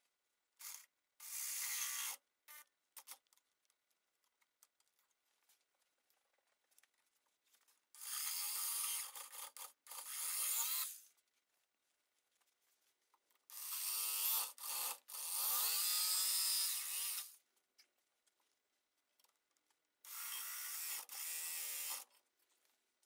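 A DeWalt jigsaw cutting through the thin wall of a turned segmented wooden vase in four short bursts, from about one to three and a half seconds each, a rattling blade buzz over a motor whine that dips and rises in pitch under load.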